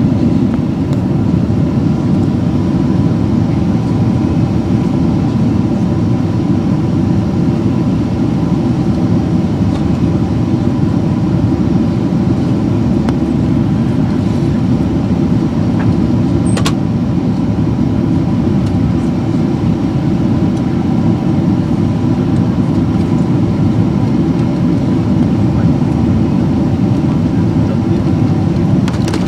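Steady cabin roar inside a Boeing 767-336ER in flight: its Rolls-Royce RB211 engines and the rush of air over the fuselage, deep and even, with a single small click about halfway through.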